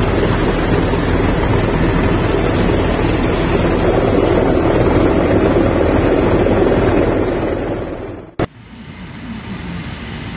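Loud, steady rush of a flooded river in spate, buffeting the microphone. It cuts off abruptly with a click about eight seconds in, and a quieter rushing noise follows.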